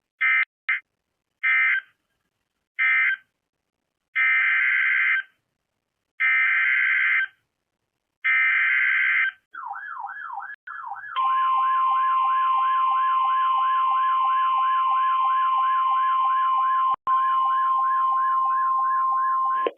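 NOAA Weather Radio alert signalling: short digital SAME data bursts, then three longer header bursts of about a second each announcing a new warning, followed by the steady 1050 Hz weather radio warning tone. A siren-like warble rising and falling a few times a second runs under the tone from about nine seconds in.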